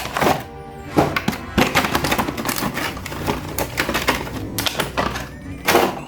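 Background music with a series of sharp knocks and clicks through it, loudest about a second in and near the end.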